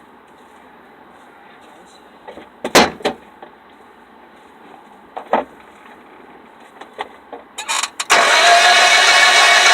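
A few sharp clicks and knocks, then about eight seconds in a loud, steady motor whir starts abruptly and keeps going.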